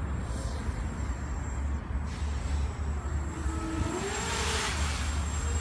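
Electric motors of a Graupner Alpha 250 FPV racing quadcopter start to whine about halfway through, the pitch rising and falling as it throttles up from the ground, over a steady low rumble of wind on the microphone.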